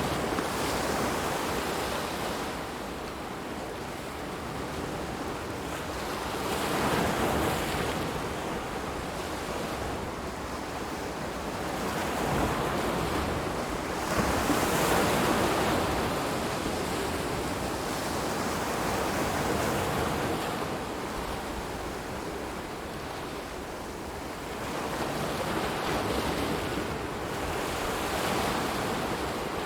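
Ocean waves breaking and washing in, in slow surges that swell and fade every several seconds.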